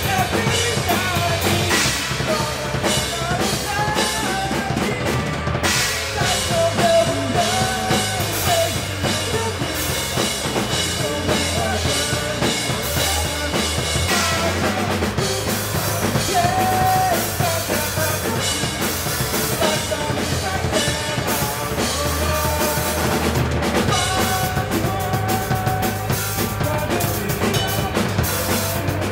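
Live rock band playing: a drum kit with bass drum and snare driving a steady beat under electric guitars.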